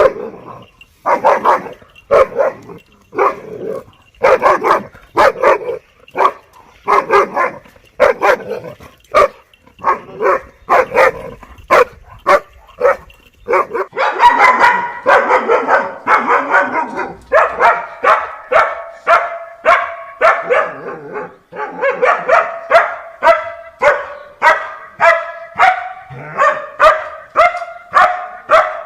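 Dogs barking repeatedly, about one bark a second at first; about halfway through the barks come faster and overlap, and near the end they turn higher and more tonal.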